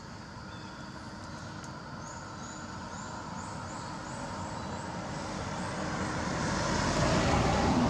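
Road noise of a car driving past, its engine and tyre sound growing steadily louder as it approaches and loudest near the end.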